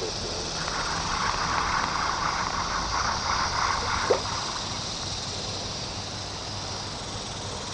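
Creek water gurgling and trickling, strongest in the first half, over a steady high drone of insects; a brief sharp sound about four seconds in.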